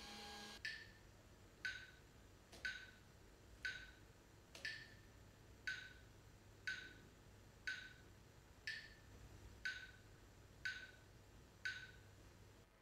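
Faint, even ticking, one tick a second, twelve in all, with the ticks alternating slightly in pitch in a tick-tock pattern. A held tone underneath cuts off about half a second in.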